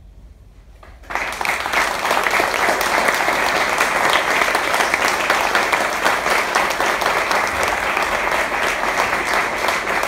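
Audience applauding: after about a second of quiet the clapping breaks out suddenly and keeps going, dense and steady.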